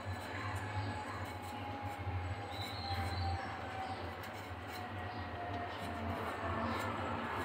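Knife scraping the skin off small new potatoes: faint, irregular scratches over a steady low mechanical hum with a faint whine that slowly drops in pitch.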